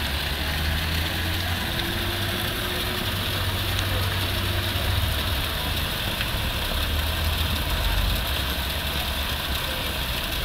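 Heavy rain falling, a steady hiss with a low rumble underneath.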